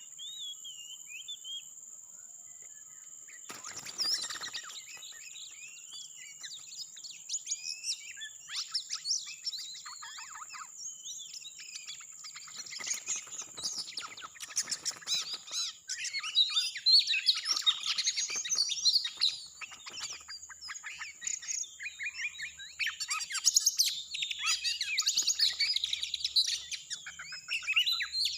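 Oriental magpie-robin (kacer) song: rapid, varied chirps and whistles that start sparse a few seconds in and grow dense and loud in the second half. A steady high-pitched tone runs underneath throughout.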